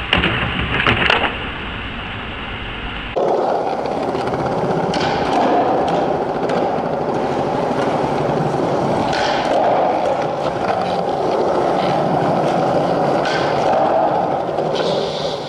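Skateboard wheels rolling on a smooth concrete floor, a steady roll broken every few seconds by the sharp clack of the board popping and landing. Near the start, before a cut, there are a few sharp clacks of a landing.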